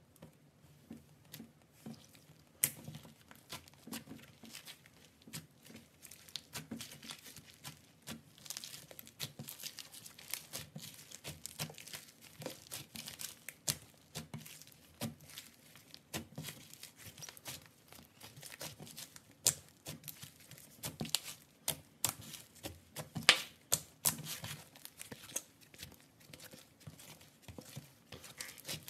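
Slime being squeezed and kneaded by hand with broken white foam blocks mixed in, giving a dense, irregular crackling and popping, with a few louder pops.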